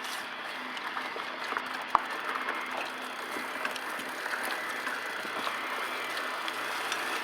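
Bicycle being ridden along a road: steady tyre and wind noise with scattered light ticks, and one sharp click about two seconds in.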